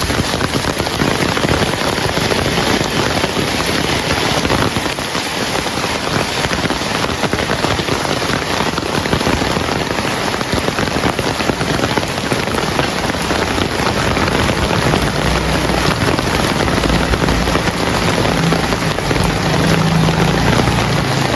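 Heavy rain falling steadily. A low rumble joins in under the rain over the last several seconds.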